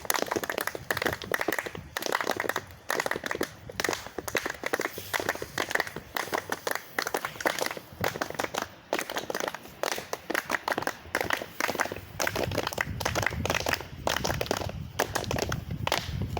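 A group clapping in a fast, continuous patter as a clapping cheer. It stops near the end.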